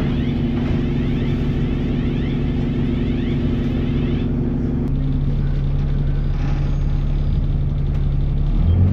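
Alexander Dennis Enviro400 double-deck bus engine running with a steady drone. A fine high whirr rides over it and stops about four seconds in. The drone drops to a lower pitch about five seconds in and climbs again near the end.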